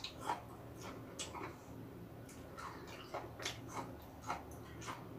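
A person chewing a mouthful of crisp hongok (Jonathan) apple, with faint, irregular crunches about twice a second.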